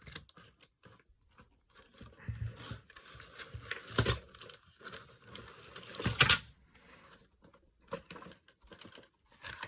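Toy packaging being handled and pried open by hand: irregular rustling, crinkling and tearing, with louder scrapes about two, four and six seconds in.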